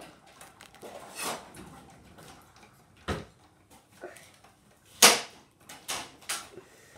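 Scattered handling noises close to the microphone: a few knocks and brushes, with a low thump about three seconds in and the loudest knock about five seconds in.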